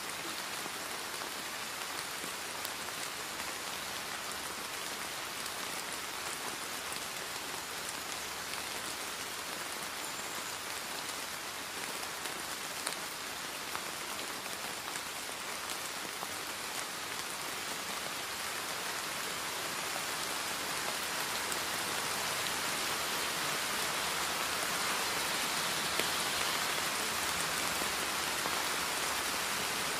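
Steady rain, an even hiss with fine pattering, growing slightly louder in the second half.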